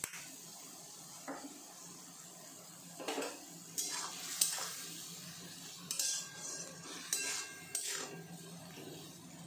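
Metal spatula stirring vegetables in a metal wok (kadai), with irregular clinks and scrapes against the pan starting about three seconds in. A sharp knock comes a second or so later.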